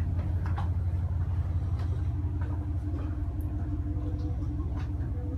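Marine diesel engine idling: a steady, low, pulsing rumble.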